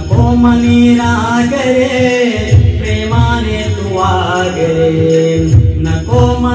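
Male singer singing long, gliding notes of a Marathi song over a backing track with a steady drum beat.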